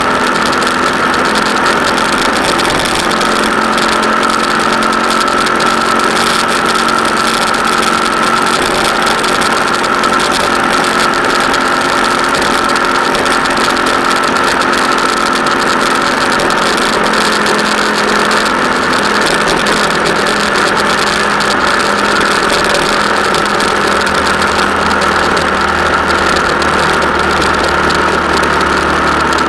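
Steady engine and road noise of a vehicle driving along a road, recorded on board. The engine note holds steady, with a slight change in its pitch in the last few seconds.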